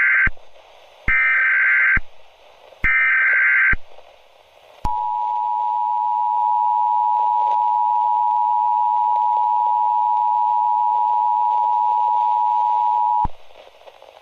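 Emergency Alert System header: three short screeching bursts of SAME digital data, the first already under way, then the two-tone EAS attention signal (853 and 960 Hz sounded together) held steady for about eight and a half seconds. This is the lead-in that announces an alert, here a severe thunderstorm warning.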